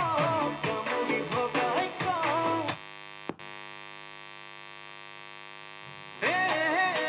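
A song plays through a loudspeaker, then cuts off about three seconds in. It leaves a steady electrical hum-buzz with a single click, and the music starts again near the end.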